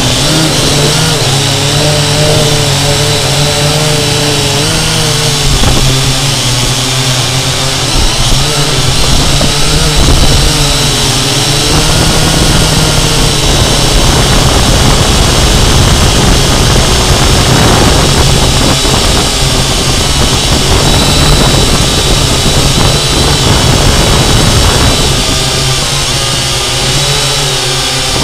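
Syma X8C quadcopter's motors and propellers, heard up close through the camera mounted on it: a loud, steady buzz with whining tones that waver up and down as the motor speeds change in flight.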